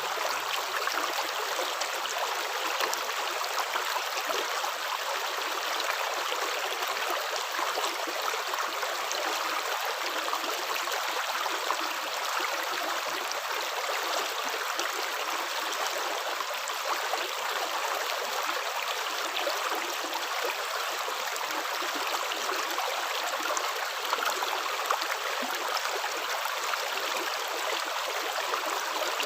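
Running water flowing steadily: a constant rushing, splashing sound with no pauses or separate steps.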